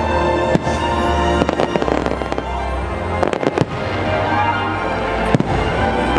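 Fireworks bursting in sharp bangs, a tight cluster a little past halfway, over the show's music soundtrack played loud through the park speakers.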